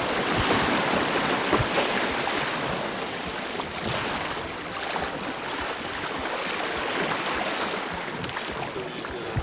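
Rushing white water of a river riffle around a canoe, loud at first and easing off as the canoe moves into calmer water, with a few sharp knocks.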